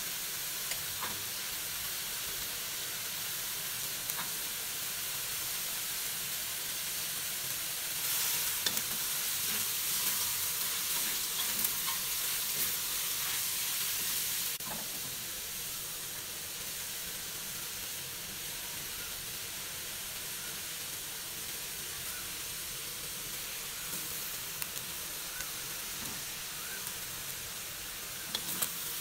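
Chicken, egg and vegetables sizzling in a hot metal wok, stirred with a spatula that now and then clicks and scrapes against the pan. The sizzle gets louder for several seconds about a third of the way in, then drops back suddenly.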